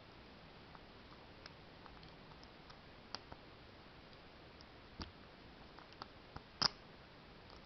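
Faint, irregular metallic clicks of a steel lock pick and tension wrench working the pins inside an ISEO pin-tumbler door cylinder, with a sharper click about six and a half seconds in.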